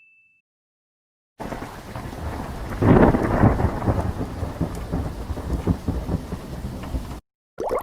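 Thunderstorm sound effect: steady rain with a loud swell of thunder about a second after it starts, then the rain carries on until it cuts off suddenly near the end.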